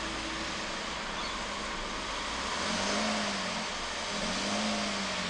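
Holden VF Commodore's 3.6-litre LFX V6 running a bit rough with its air intake removed, revved briefly twice in the second half, each time rising and falling in pitch.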